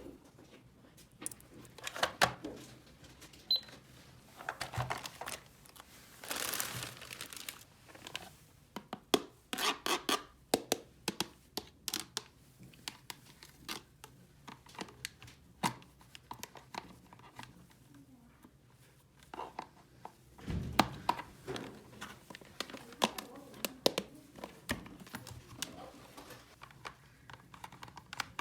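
Small plastic toy pieces being handled: irregular light clicks and taps, with stretches of crinkling and rustling like packaging or plastic film being handled, notably a few seconds in and again about two-thirds of the way through.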